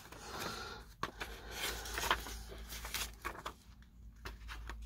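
Sheets of scrapbook paper rustling and sliding against each other as they are handled and turned over, in short scratchy strokes, with a brief lull near the end.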